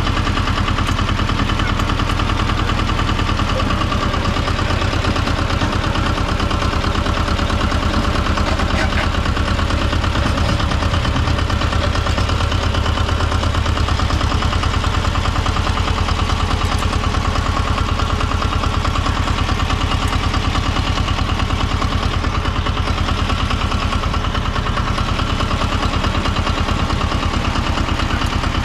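Tomo Vinković TV 731 tractor's diesel engine running steadily at a constant speed, with a rapid, even firing beat.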